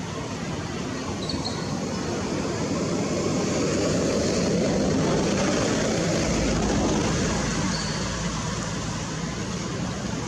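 A motor vehicle passing, its engine and road noise growing louder and then fading over a few seconds, over a steady background hiss.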